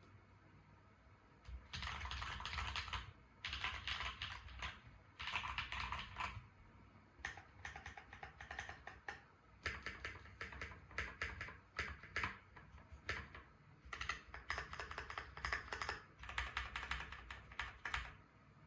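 Space65 mechanical keyboard with Holy Panda tactile switches, a carbon fibre plate and GMK Lux keycaps, typed on in bursts of rapid keystrokes with short pauses between them. The typing starts about a second and a half in.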